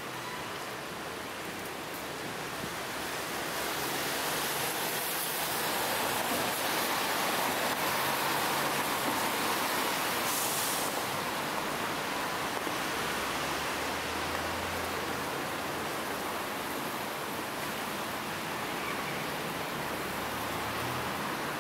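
Steady hiss of street traffic, tyres running on a wet road, swelling for several seconds near the middle.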